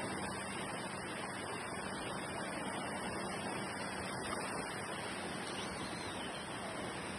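Sea surf washing onto a beach in a steady, even rush of noise, with no single wave standing out.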